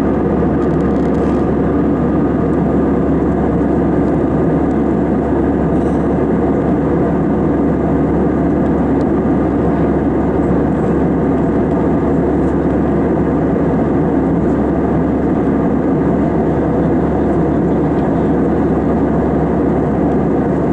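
Steady cabin noise of an Airbus A320 airliner in cruise, heard from a seat over the wing: the engines and rushing airflow make a constant low, dull rumble that does not change.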